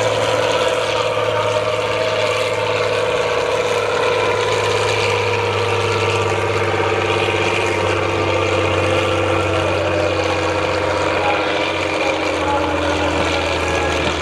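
Six-wheeled off-road trial truck's engine running hard under load as the truck climbs a steep dirt slope, its pitch holding steady.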